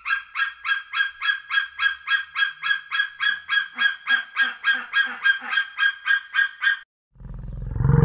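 Javan hawk-eagle calling a long, even series of shrill piping notes, about three to four a second, which stops near the end. Right after, a loud, deep animal call begins and swells.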